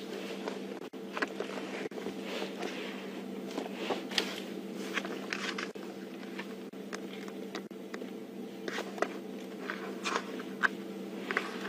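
Scattered short crackles and snaps over a steady low hum.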